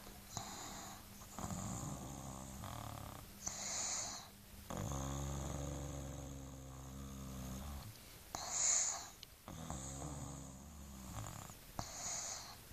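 A sleeping baby snoring in slow breaths. Drawn-out pitched snores alternate with short hissing breaths; the longest snore lasts about three seconds near the middle, and the loudest sound is a hiss about nine seconds in.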